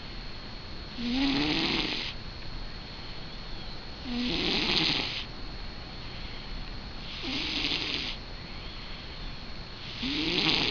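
Sleeping cat snoring: four breathy snores about three seconds apart, each with a low rising tone under the hiss of the breath.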